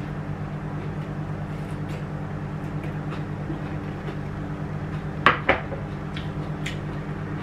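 Two sharp knocks close together about five seconds in, a bowl and chopsticks set down on a table, with a few faint clinks, over a steady low hum.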